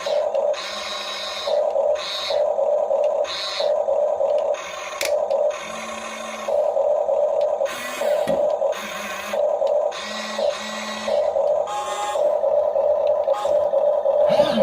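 Huina 1535 RC excavator running: a steady electronic hum with repeated short whirring bursts from its electric gear motors as it moves, starting and stopping about eight times.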